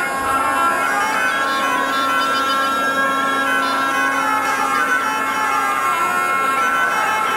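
Folk music played on loud reed wind instruments: a steady low drone note held under a high, wavering melody.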